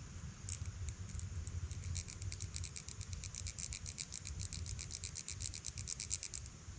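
Two-penny squirrel call: the edge of one copper penny rubbed fast across the back of an older Lincoln Memorial penny, a rapid train of dry scratching strokes that imitates a squirrel chewing on a nut. It starts sparse about half a second in, quickens into a steady run of several strokes a second, and stops shortly before the end.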